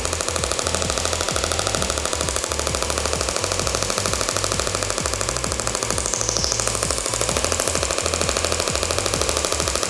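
Radial shockwave therapy handpiece firing a rapid, even train of clacking pulses into the shoulder, well over ten a second.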